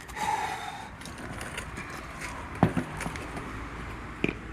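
Two sharp metallic knocks about a second and a half apart, the first the louder, from tools and universal-joint parts being handled and knocked while the new U-joint is fitted into the axle shaft.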